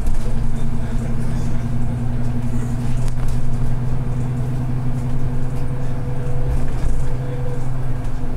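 Inside a moving bus: a steady low drivetrain hum over road rumble while it cruises along at constant speed.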